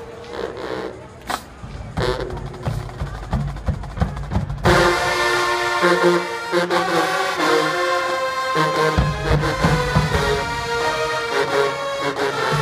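High school marching band: the drumline plays spaced, sharp hits, then the full band with brass comes in loudly about four and a half seconds in, holding chords over the drums.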